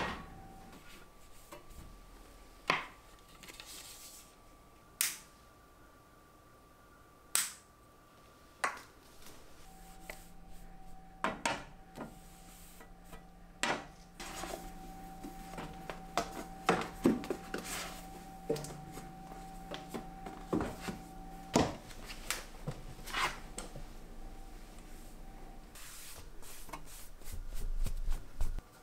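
Scattered sharp knocks and clinks of small ornaments and objects being picked up and set down on steel wall shelves during dusting and tidying, with soft handling noise between them and a busier stretch near the end.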